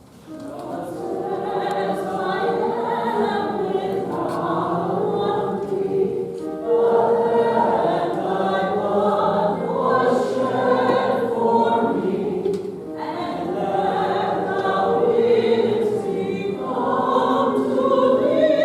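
A choir singing, several voices in sustained lines, starting suddenly.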